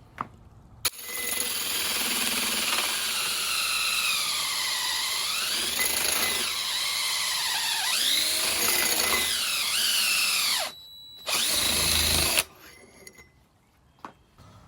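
Electric power tool running under load, its motor pitch sagging and recovering again and again. It starts about a second in, pauses briefly near the end, runs once more, then stops.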